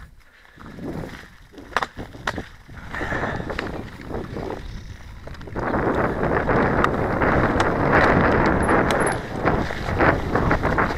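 Cannondale Lefty full-suspension mountain bike rolling on a dirt trail: tyre noise with a few sharp rattles and knocks from the bike over bumps. About halfway through, a louder, steady rush of tyre and wind noise on the microphone takes over.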